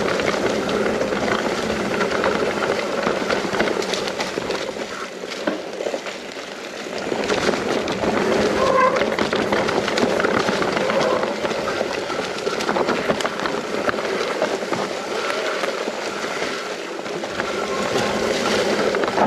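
Mountain bike riding down a rough trail: tyres rolling over dirt and stones, with a steady clatter of small knocks and rattles from the bike.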